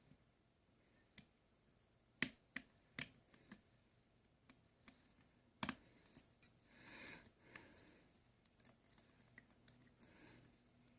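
Faint, sparse sharp clicks of a lock pick working inside a Medeco X4 lock under tension, a few close together a couple of seconds in and another about two-thirds of the way through, with a brief soft rustle after it. The picker is working to set the lock's check pin after the pin stacks are set.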